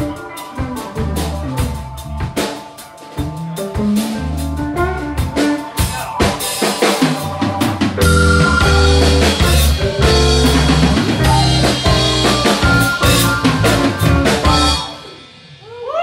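Live band of drum kit, electric bass, electric guitar and keyboards playing an instrumental stretch with busy drumming. It gets fuller and louder about halfway, then ends in a closing chord that dies away near the end: the finish of the song.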